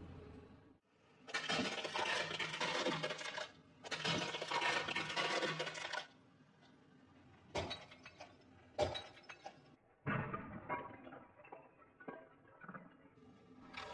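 Plastic toys cracking and crunching under a car tyre as they are run over: two long stretches of crackling, then a couple of sharp single cracks, then quieter crackling near the end.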